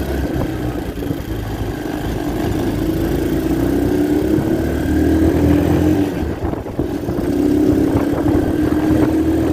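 A 250cc ATV engine pulling the quad along, its pitch slowly climbing. About two-thirds of the way in it eases off briefly, then picks up again.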